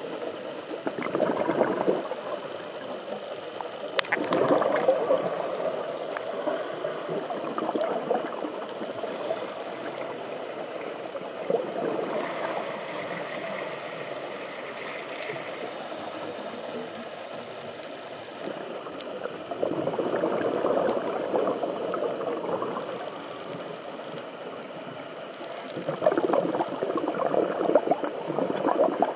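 Underwater bubbling and gurgling of a scuba diver's exhaled breath, picked up muffled through a compact camera's underwater housing. It comes in louder bursts a few seconds apart, with a steady muffled water noise between.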